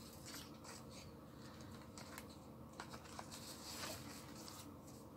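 Faint rustling of paper and craft materials being handled on a work table, with a few light clicks.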